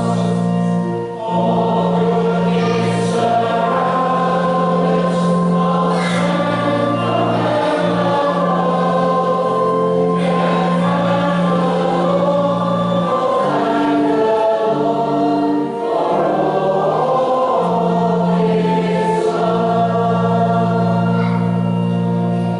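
A choir singing a Christian hymn over sustained, held accompaniment chords.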